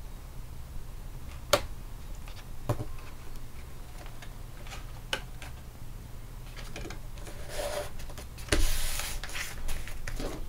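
Cardstock paper being handled and slid over a tabletop: soft paper rubbing and rustling with a few light taps, and a heavier thump about eight and a half seconds in.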